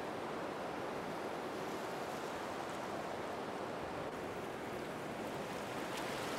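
Steady rushing noise of ocean surf breaking, with no distinct events.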